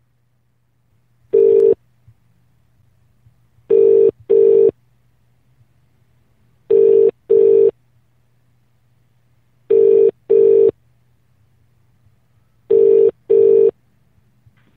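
British telephone ringing tone heard down the line while an outgoing call waits to be answered. It gives one single burst, then four double rings ('brr-brr'), one pair every three seconds, over a faint steady line hum.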